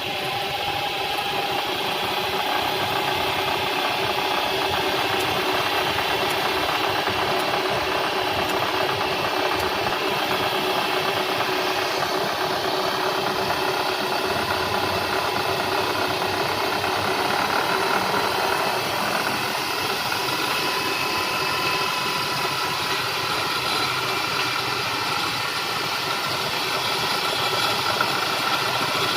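Bridgeport conventional tool-room milling machine running: a steady mechanical hum and rattle with several whining tones from the spindle drive, which shift slightly in pitch about two-thirds of the way through.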